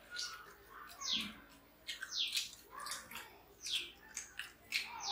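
A bird chirping, short falling calls repeated about once a second, over faint clicks and smacks of people eating rice by hand.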